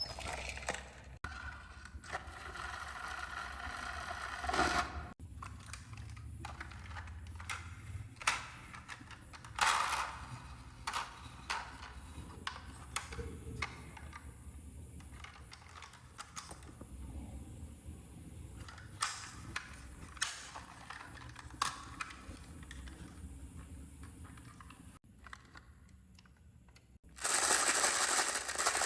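Marbles rolling and clacking down a marble run, with scattered sharp clicks and knocks as they hit the track. Near the end comes a loud, dense clatter.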